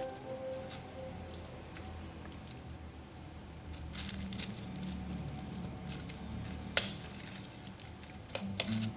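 A spoon spreading and patting a moist minced beef-and-vegetable filling over a crepe layer, with soft squishing, crinkling of the plastic lining, and a few light clicks of the spoon, the sharpest about seven seconds in.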